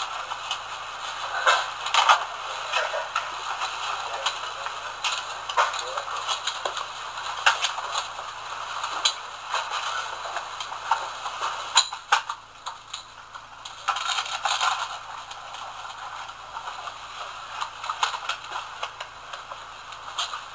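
People moving about and handling things close by: rustling, shuffling and scattered light clatters and clicks, over a steady hiss.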